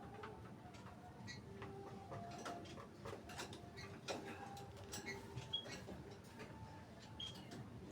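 Faint scattered light clicks and ticks, with a few short high bird chirps and soft, low, held whistles.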